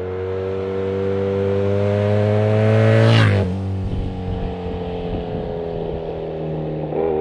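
A motorcycle accelerating towards and close past the listener: its engine note climbs in pitch and grows louder, then drops sharply as it goes by about three seconds in, and runs on at a lower pitch as it pulls away.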